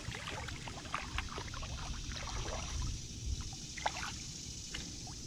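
A splash as a released pickerel drops back into the water beside a kayak, then light splashing and dripping at the surface.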